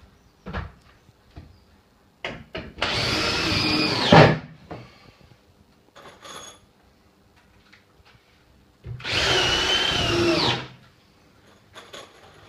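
Power drill running in two bursts of about a second and a half each, its high whine shifting in pitch, with short knocks and taps in between.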